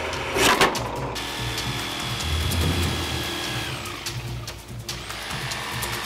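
Benchtop drill press boring into 3/8-inch plexiglass, with a brief loud burst as the bit cuts about half a second in. The motor winds down about two-thirds of the way through, and near the end a jigsaw motor starts up. Background music plays underneath.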